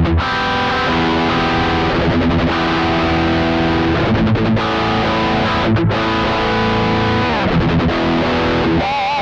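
Electric guitar played through the Tech 21 Fly Rig RK5's OMG high-gain drive, with the gain short of full: sustained, tight distorted chords that change every couple of seconds, with a bent, wavering note near the end.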